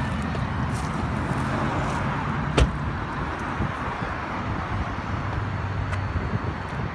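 A Toyota sedan's door being shut with a single sharp thud about two and a half seconds in, over a steady low rumble.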